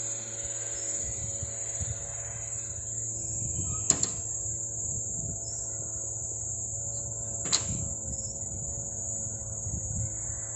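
Steady high-pitched insect chirring over a low, even hum, broken by two sharp knocks: a quick double knock about four seconds in and a single one about seven and a half seconds in.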